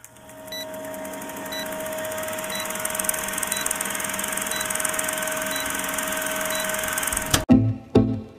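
Old-film countdown leader sound effect: a steady projector-like hiss with a low hum and a short high beep about once a second, seven beeps in all. It cuts off sharply just past seven seconds in, and plucked-string music with a bass line starts.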